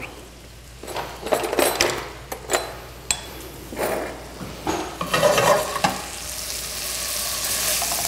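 A metal spoon stirring and scraping in a stainless steel sauté pan in several separate strokes, then, from about six seconds in, a steady sizzle as the date and fig compote (dates, ginger, fig jelly and honey in butter) heats up in the pan.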